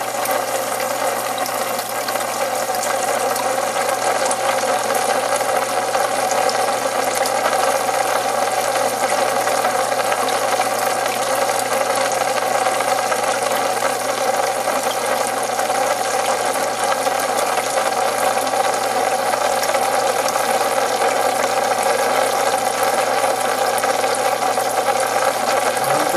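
Aquarium pump running: a steady mechanical whir with water noise, unchanging throughout.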